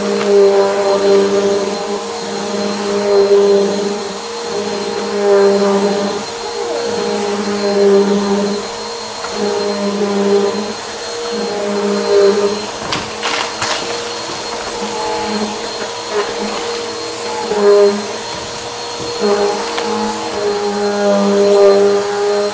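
Eureka Maxima bagless upright vacuum cleaner running on a rug, its motor hum swelling and easing with each push-and-pull stroke about every two to three seconds. A few sharp crackles about halfway through as debris is sucked up.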